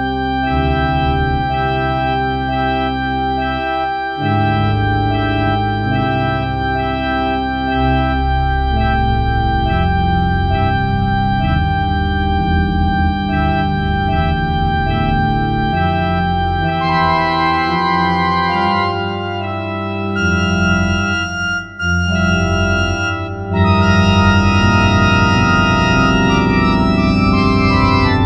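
Organ music: sustained chords held over a slowly moving bass. Higher notes come in about two thirds of the way through, and the playing gets louder near the end.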